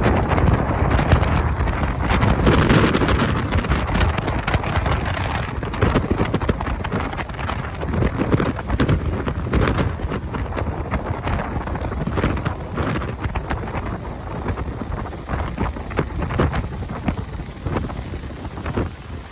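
Wind buffeting the microphone on a moving motorboat: a loud, rough rushing noise with many short crackling pops, easing off near the end.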